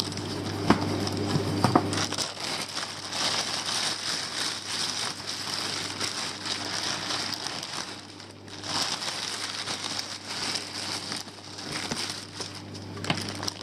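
Thin plastic sheeting crinkling and rustling as hands pull it back and handle it, with a brief lull about eight seconds in.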